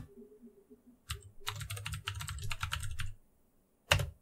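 Typing on a computer keyboard: one keystroke, then a quick run of keystrokes lasting about a second and a half, a pause, and a single louder keystroke near the end.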